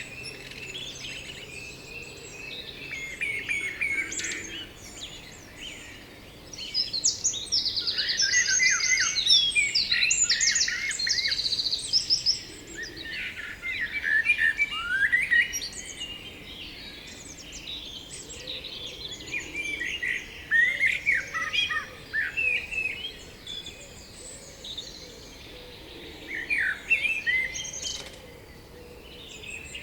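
Several songbirds singing at once, overlapping phrases of trills, chirps and quick sweeping notes, loudest for a few seconds about a quarter of the way in.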